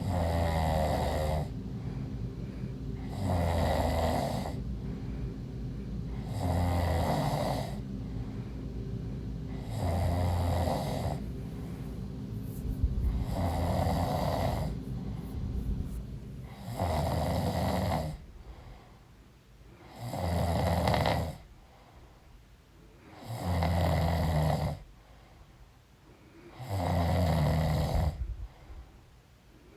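A pregnant woman snoring in deep sleep, with regular loud snores about every three and a half seconds, nine in all.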